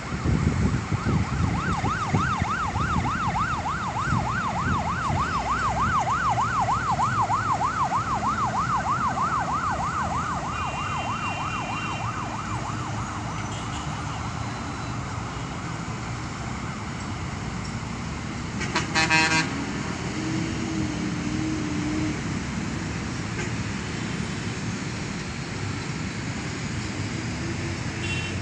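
Emergency vehicle siren in a fast yelp, rising and falling about three or four times a second over steady city traffic noise, fading out about eleven seconds in. A short vehicle horn blast sounds about nineteen seconds in.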